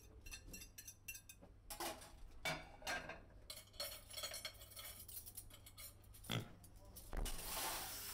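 Sparse diner foley: light clinks and taps of crockery and cutlery, a single sharp knock about six seconds in, and a longer papery rustle near the end as a menu is handled.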